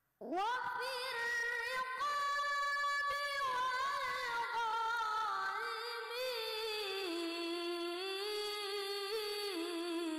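A young boy's high voice chanting Quran recitation (tilawah) into a handheld microphone. After a short silence he starts a new phrase with a quick upward sweep, holds a long high note with ornamented turns, then slowly descends in pitch.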